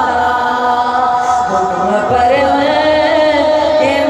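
A woman singing a devotional Urdu poem into a handheld microphone, in a chant-like melody with long held notes that waver in places.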